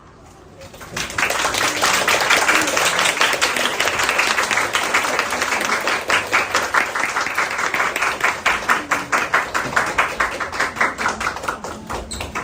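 Audience applauding, starting about a second in. In the second half the clapping falls into a more even rhythm and thins out near the end.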